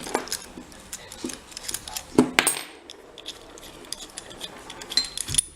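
Small metal clicks and clinks as a rim night latch and its parts are handled, with one louder knock about two seconds in.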